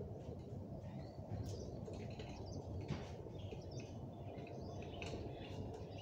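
Small birds chirping and twittering in quick scattered calls, thickest about a second and a half in, around three seconds in and again near the end, over a steady low background rumble.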